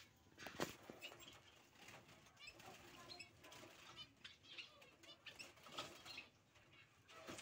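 Society finches fluttering and flapping inside a small wire cage as a hand reaches in to catch a fledgling, with light knocks and clicks from the cage and faint high chirps.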